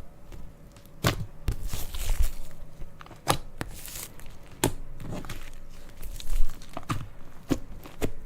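Slime being pressed and poked by hand, giving sharp, irregular clicking pops as air pockets burst, about one every half second to second.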